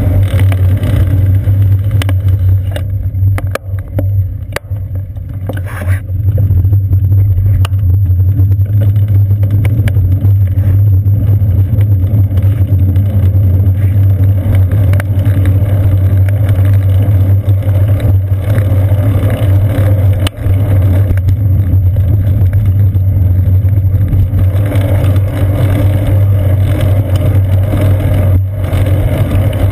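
Steady, loud low rumble of wind and road vibration picked up by a seat-post-mounted GoPro Hero 2 in its housing on a moving bicycle. It eases for a few seconds around three to six seconds in, with a few sharp knocks.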